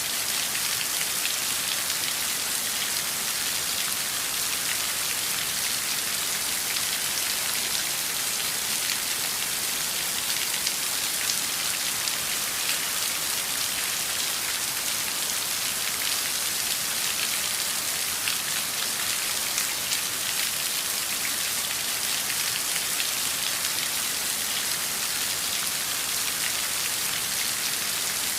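Steady heavy rain falling on hard surfaces, a dense even hiss full of fine drop ticks.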